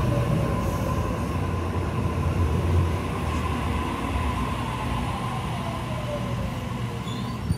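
Double-deck Tangara electric train (N set) running along the platform as it comes in: a steady low rumble of the cars with a motor whine that falls in pitch as the train slows, and a sharp click near the end.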